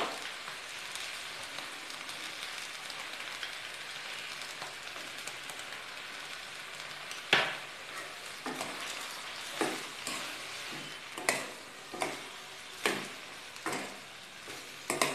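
Chopped onions, tomatoes and cashews sizzling steadily in a small stainless-steel kadai over a gas flame. From about seven seconds in, a steel spoon stirs the mixture and knocks against the pan about once a second.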